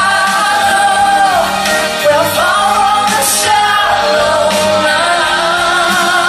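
A woman singing live into a microphone over backing music, holding long wavering notes that slide between pitches.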